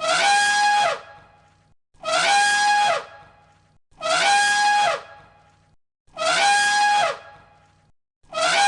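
Elephant trumpeting, one identical cartoon sound-effect call repeated five times about two seconds apart. Each call is about a second long, rising, holding a steady blaring tone, then dropping off.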